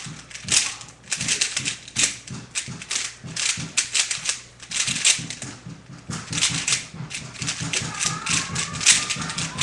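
Rubik's Cube being turned fast in a speedsolve: a rapid, uneven run of plastic clicks and clacks as the layers snap round.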